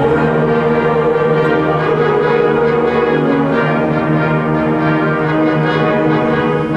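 High school concert band playing slow, sustained chords, with the brass (trombones, horns, trumpets) most prominent.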